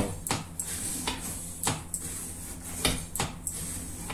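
A steel knife blade making about six short, sharp cutting strokes at an irregular pace, as in a blade edge test.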